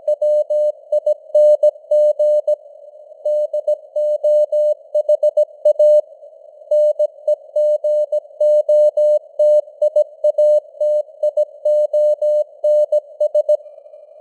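Morse code sent at 17 words per minute as a single steady tone keyed in dots and dashes, over a narrow band of simulated radio hiss. The sending pauses briefly twice between words and stops about a second before the end, leaving only the hiss.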